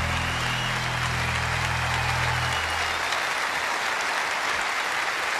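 A large audience applauding over the band's last held chord, which stops about halfway through, leaving only the applause.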